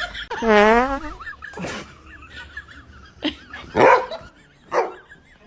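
A short buzzy fart noise about half a second in, then a dog barks four times in short single barks.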